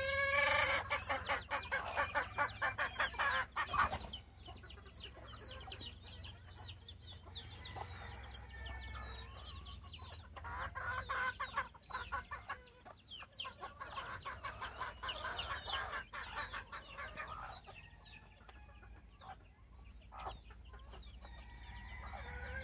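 Gamefowl chickens clucking: a loud, fast run of clucks in the first few seconds, then softer scattered clucks and calls. A rooster's crow trails off at the very start, and another call begins near the end.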